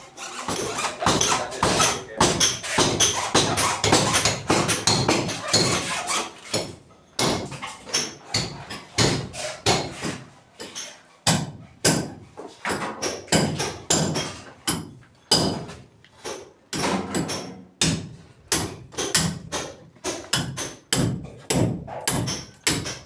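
Repeated hammer blows on a building job: a dense, overlapping run of strikes for the first seven seconds or so, then separate strikes at roughly two a second.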